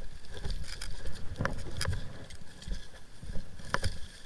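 Footsteps crunching through dry scrub, with brush scraping against clothing and a helmet-mounted camera. There are uneven low thumps throughout, and sharp clicks about a second and a half in, just under two seconds in, and near the end.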